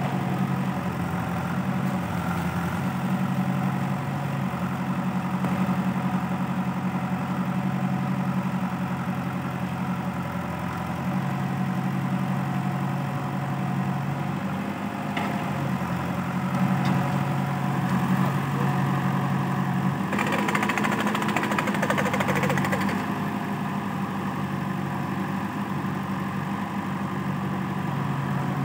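Diesel engine of a JCB backhoe loader running steadily as it digs and loads soil into a tractor trolley, with the tractor's engine also running. A louder, noisier stretch lasts a few seconds about twenty seconds in.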